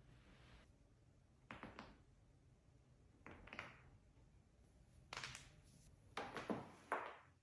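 A chiropractic adjustment session: a series of short thumps and cracks from the joints being manipulated, spaced a second or two apart, with a quicker cluster near the end.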